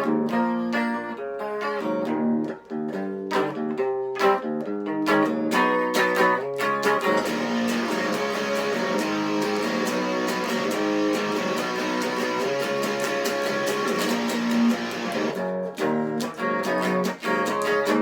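Electric guitar played through an amplifier: picked notes and chords, then about seven seconds in a dense stretch of fast strumming that stops at about fifteen and a half seconds, followed by picked notes again.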